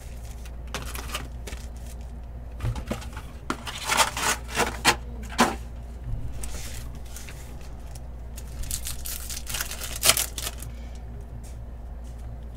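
Trading card packs being torn open and the cards handled: crinkling wrappers and quick clicks of cards, in two busy spells about four to five and a half seconds in and again around nine to ten seconds, over a steady low hum.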